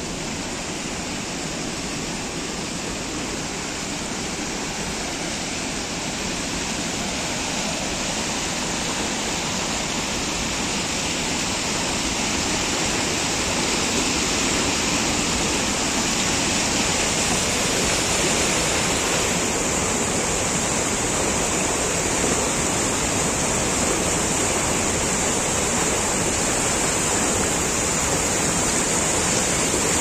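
A stream in spate pours over rocks in rapids and a small waterfall: a steady rush of white water that grows louder through the first half and then holds.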